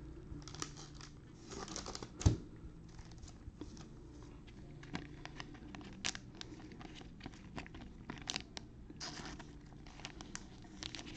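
Gloved hands handling a trading card and a clear plastic card holder, sliding the card into it: irregular crinkly plastic rustles and small clicks, with one sharp knock a little over two seconds in.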